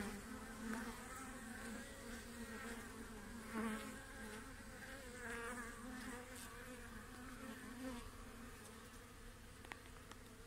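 Honey bees on an open hive frame buzzing in a steady hum that swells and eases a little.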